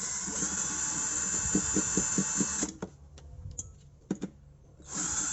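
Electric drill spinning a socket on a universal-joint extension to back out a refrigerator compressor's mounting bolt. It runs steadily for about two and a half seconds with a light rattling underneath, stops with a few clicks, then starts again for a second run near the end.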